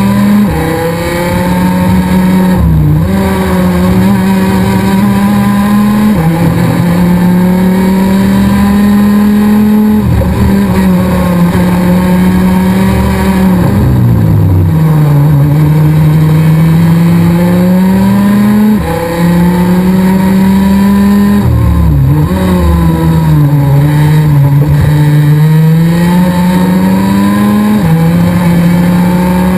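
Rotax DD2 125 cc two-stroke kart engine at racing speed, its high note climbing steadily under acceleration and dropping suddenly about seven times, with wind rush underneath.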